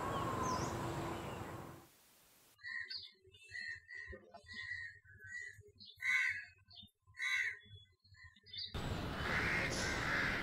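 A series of short bird chirps and whistle-like calls, repeating at irregular intervals over a few seconds, set against silence. The chirps are preceded and followed by noisy outdoor background.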